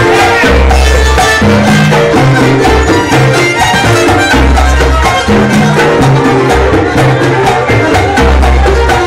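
Live charanga band playing Latin jazz: congas, timbales and violins over deep bass notes, with a dense, driving percussion rhythm.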